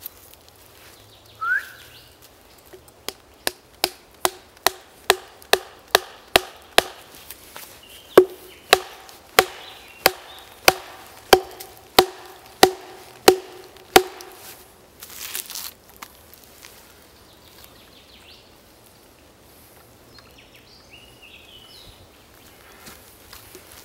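Log being split by hammering a tool driven into its end with a wooden baton: sharp wooden knocks about two a second for some ten seconds, each with a short ringing note, then a brief rustle.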